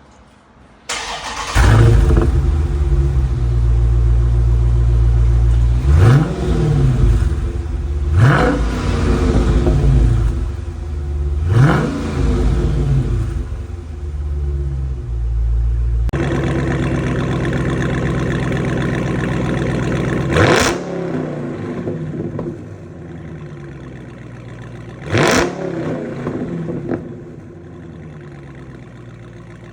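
Dodge Challenger SRT's 6.4-litre HEMI V8 idling through its exhaust, with short throttle blips that rise and fall back: three in the first half, two more after an abrupt change in the sound about 16 seconds in, where the idle is quieter. The two halves compare the stock exhaust with a Grail SlyStyle performance exhaust.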